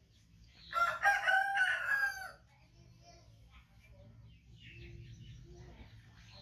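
A rooster crowing once, a loud call of about a second and a half starting just under a second in.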